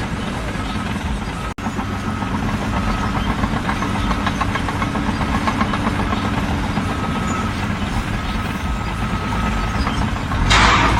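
Heavy engine running steadily, broken by a brief dropout about a second and a half in, with a short loud hiss near the end.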